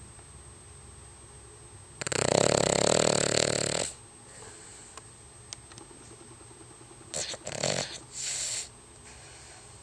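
Cavalier King Charles Spaniel snoring in its sleep: one long, loud snore lasting about two seconds begins about two seconds in, then a few shorter, breathier snores come near the end.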